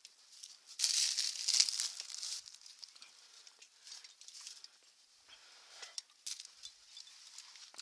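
Close rustling and scraping as a climber's hands and body brush through grass and over limestone holds, loudest for about a second and a half near the start, then quieter scuffs and small clicks.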